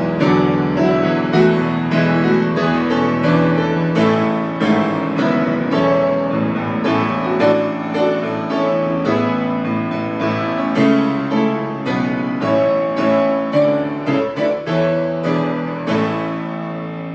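Solo piano playing a hymn arrangement: sustained chords under a melody, with notes struck several times a second.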